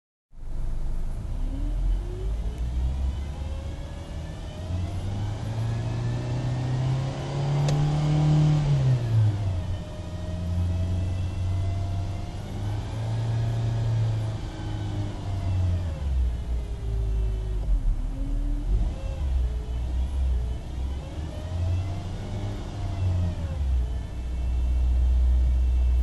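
Honda Odyssey RB1's automatic transmission giving a high-pitched whine over the low engine drone, its pitch rising and falling with engine speed several times; the owner fears it is a transmission fault.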